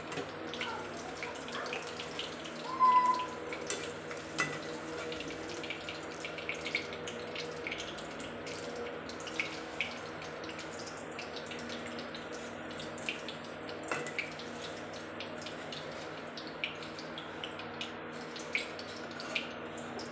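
Vegetables sizzling as they fry in oil in a steel kadai, with the clinks and scrapes of a slotted steel spoon stirring them against the pan. A brief high squeak about three seconds in is the loudest moment.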